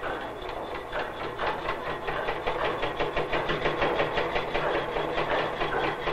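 Hammer tapping a carving chisel in a quick, even rhythm, about five strokes a second, getting louder after the first two seconds.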